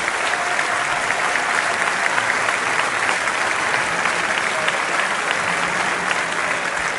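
Steady audience applause: a dense patter of many hands clapping.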